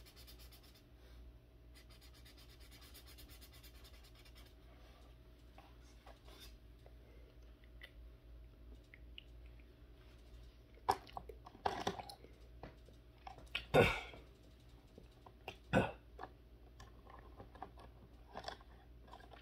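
Felt-tip markers being handled: faint, then from about halfway through a handful of short clicks and knocks as a marker is worked in the hands and others are put into and taken from their cardboard box, the loudest a little past the middle.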